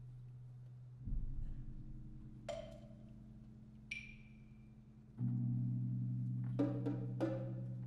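Orchestra playing a slow, quiet passage: a low held chord with a soft low rumble swelling about a second in, and the chord growing louder and fuller about five seconds in. Single struck percussion notes ring out over it, including one high ringing metallic note near the middle and a few mallet strokes near the end.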